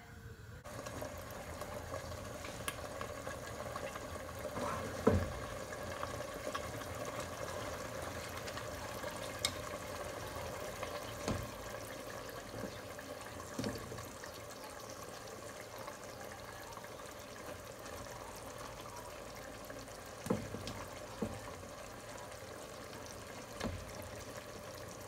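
Cooking in a pot on the stove: a steady watery hiss, with a few short knocks of a spatula against the pot as parboiled rice is spooned in over the chicken.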